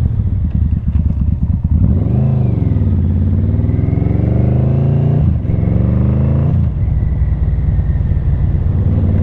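1995 Yamaha Vmax 1200's V4 engine through a Delkevic carbon slip-on exhaust, under way. The revs rise and fall about two seconds in, climb for a couple of seconds, dip briefly twice as the bike shifts gears, then settle to a steady cruise.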